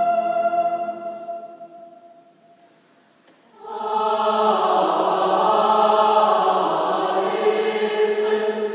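Mixed choir singing. A held chord fades away, there is a gap of about a second, and then the full choir comes back in loudly on a sustained chord about three and a half seconds in.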